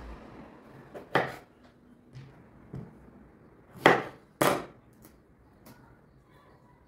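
Kitchen work sounds: a few sharp knocks and clatters of utensils on a hard work surface, the loudest a pair half a second apart about four seconds in.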